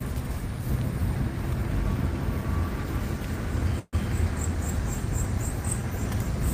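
Car cabin noise while driving: a steady low rumble from the road and engine. The sound drops out for an instant about four seconds in, and after that a faint high chirping repeats about four times a second.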